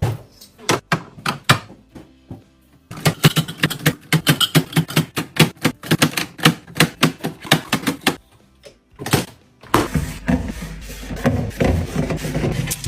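Quick series of sharp clicks and taps, several a second, from packaged items and containers being handled and set down while a fridge is restocked. Background music plays underneath.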